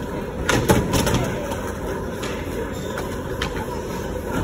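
Skateboard on a wooden ramp box: a sharp clack of the board hitting down about half a second in, then a steady rumble of urethane wheels rolling on concrete, with a few lighter knocks.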